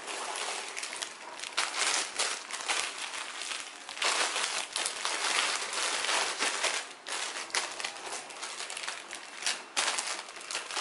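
Plastic Indomie mi goreng noodle packets crinkling and rustling as they are picked up and stacked by hand. The crackle is continuous and irregular, busiest around the middle.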